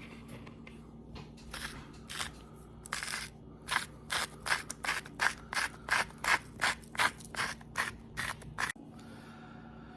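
Seasoning being dispensed from a spice jar over a mixing bowl in a run of short, even rasping strokes, about two a second, that stop a little before the end.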